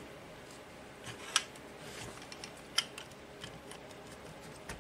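Plastic clicks and light knocks from a DeWalt 20V battery pack's casing being handled: two sharp clicks about a second and a half apart, with a few fainter ticks between them.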